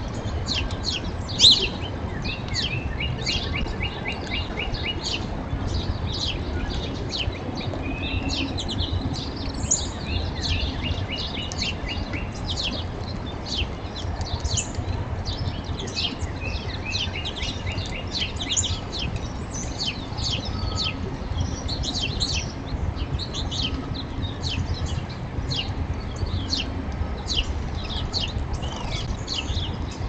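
Small songbirds chirping many times in quick, short falling notes, with a few rapid trills, over a steady low rumble.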